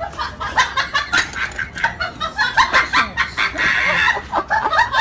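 Many short, high animal calls in quick succession, several a second.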